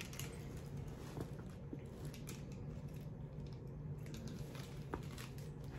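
A few faint clicks from a bunch of keys on a lanyard being handled, over a steady low hum.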